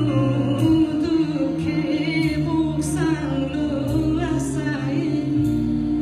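A woman singing live, accompanied by acoustic guitars, double bass and cello. The sung line wavers in pitch over held low notes from the strings.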